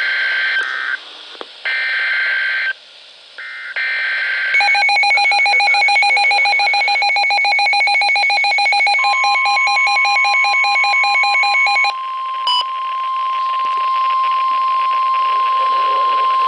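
NOAA Weather Radio SAME digital header: three roughly one-second bursts of screechy data tones. A weather alert radio then sounds its rapidly pulsing alarm for about seven seconds, and partway through, the steady 1050 Hz Warning Alarm Tone begins and keeps sounding after the alarm stops.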